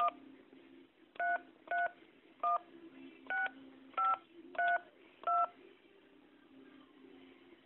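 Telephone keypad touch-tones heard over a phone line: eight short two-note beeps at uneven intervals over about five and a half seconds as a phone number is keyed in, then only faint line hiss.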